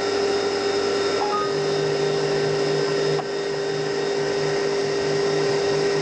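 CNC mini mill running its program, the spindle motor giving a steady high whine. About a second and a half in, a low pulsing hum joins it and keeps going.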